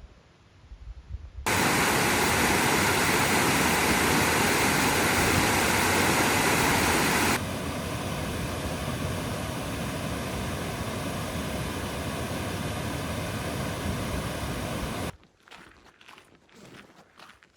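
Rushing water, a loud steady noise that cuts in about a second and a half in, drops suddenly to a lower level about halfway through, and stops abruptly near the end. Footsteps follow it.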